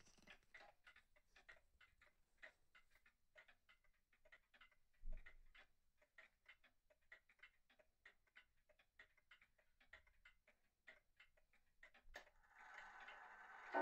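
Takano Seimitsu deer-mark spring-wound pendulum wall clock ticking faintly and evenly. Near the end comes a louder click and then a rising whir: the striking train releasing as the minute hand reaches the hour.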